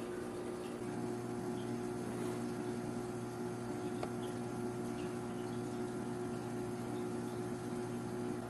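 A steady background hum made of several held tones, with a faint click about four seconds in.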